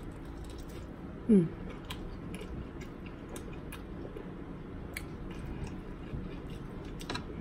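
Close-miked eating: chewing with scattered light clicks. About a second in comes one brief, loud voice-like sound that falls in pitch.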